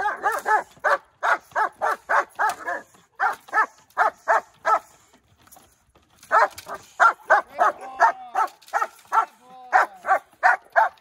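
Young black German Shepherd barking in rapid strings, about three or four barks a second, at a decoy in a bite jacket during protection training, with a pause of about a second and a half around five seconds in.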